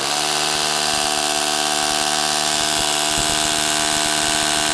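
Bosch corded electric hammer drill running steadily on hammer setting, its masonry bit boring through a timber plate into brick.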